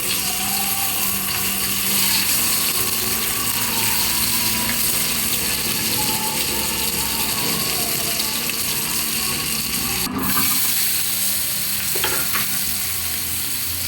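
Food sizzling steadily as it fries in a pan, a continuous even hiss with a low hum underneath.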